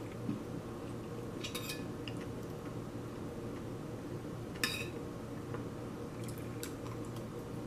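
A metal spoon clinking and scraping against a ceramic plate while rice is scooped: a few light clicks, the sharpest about halfway through, over a steady low hum.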